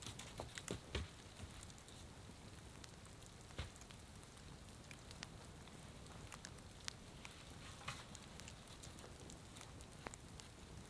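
Small campfire crackling with scattered short pops, and a few low knocks as wooden poles are set up, the strongest in the first second and one more a few seconds in.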